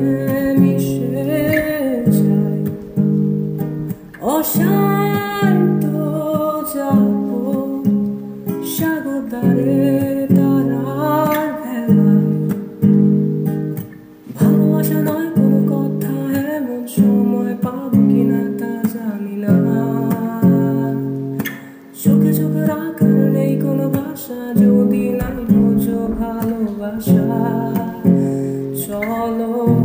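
Acoustic guitar strummed in a steady rhythm, accompanying a man singing a Bengali love song.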